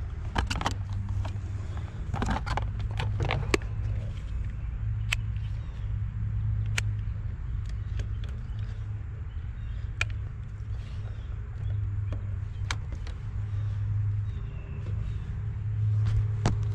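A steady low hum with scattered sharp clicks and rustles as a clamp meter and its test leads are handled and clamped around a wire, most of them in the first few seconds.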